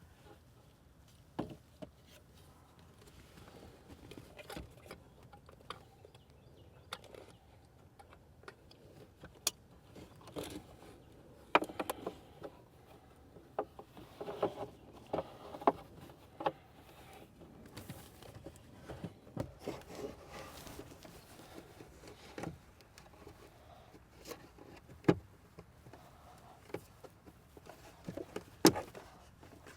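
Scattered clicks, taps and knocks of plastic car interior trim and parts being handled and pressed into place, with a few sharper snaps standing out, one about a third of the way in and one near the end.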